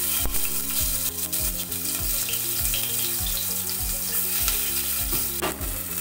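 Chopped vegetables dropped into hot oil in a pan, setting off a sudden, steady sizzle of frying. There is a single sharp clink near the end.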